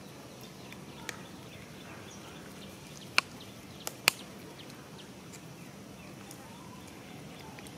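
Steady outdoor background noise with a few sharp clicks, the two loudest about three and four seconds in, and faint high calls near the end.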